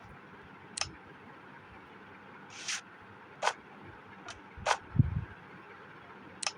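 A series of scattered sharp clicks and knocks, with a low thump about five seconds in, over a steady background hum.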